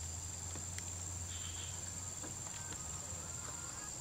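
Steady high-pitched insect drone over the low hum of the stuck Toyota Calya's engine, which drops away near the end, with a few faint clicks.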